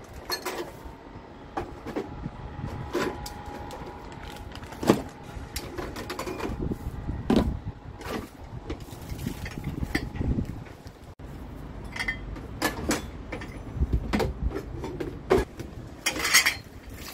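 Scattered knocks and clatter of plastic basins, a packet and a lid being handled and moved around, with a faint steady tone through the first half.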